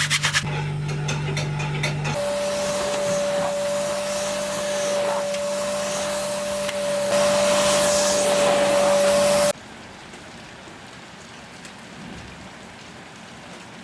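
Vacuum cleaner motor running with a steady high whine, a step louder for its last two seconds, then switched off suddenly about nine and a half seconds in, leaving a faint steady hiss. A lower motor hum is heard for the first two seconds.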